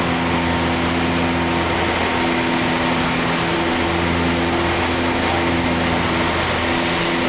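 Turboprop engines and propellers heard from inside the cockpit on final approach: a steady, loud drone with a low, even propeller hum under it.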